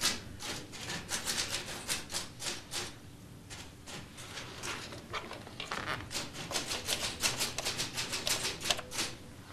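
Typewriter being typed on: quick runs of sharp keystrokes, several a second, broken by short pauses.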